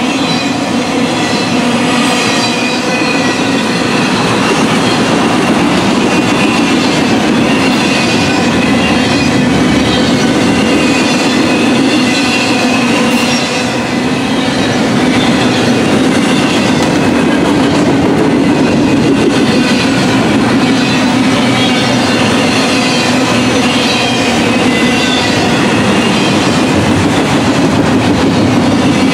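Double-stack intermodal freight cars rolling past at close range: a loud, steady rumble of steel wheels on rail, with thin high squealing tones running over it.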